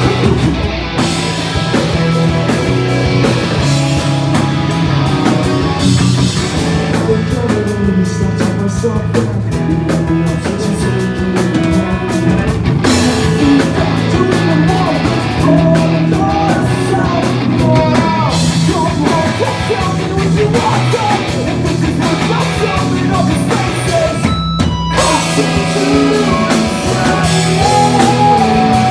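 Live pop-punk band playing: electric guitars, drum kit and singing.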